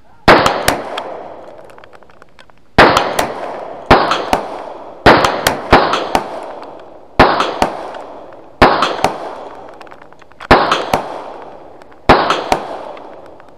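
Handgun fired one shot at a time at a slow, uneven pace, about nine shots one to two seconds apart, each sharp crack trailing off in an echo.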